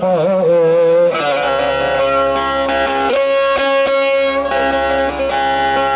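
A sung Turkish folk phrase trails off in the first second, then an amplified bağlama (long-necked saz) plays an instrumental passage of steady, ringing notes between the sung lines.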